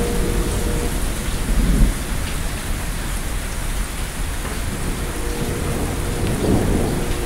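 Steady rain falling on the ground and roofs, with a low rumble of thunder under it.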